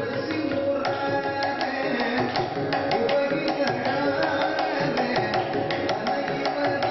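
Carnatic vocal music: a male voice singing a melodic line over a steady stream of hand-drum strokes.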